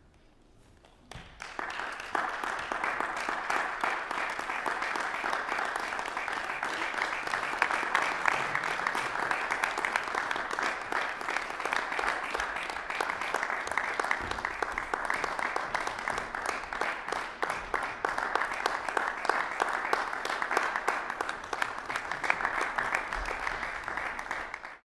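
Audience applauding: the clapping starts about a second in, holds steady, and cuts off suddenly near the end.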